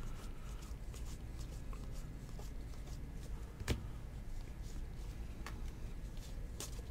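Baseball trading cards being flipped one at a time from one hand to the other: soft slides and light clicks of card stock, with one sharper click about halfway through. A low steady room hum lies underneath.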